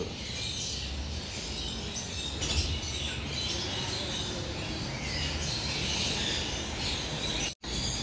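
Faint bird chirping over a steady background hiss, the ambient sound of caged aviary birds. The sound cuts out for an instant near the end.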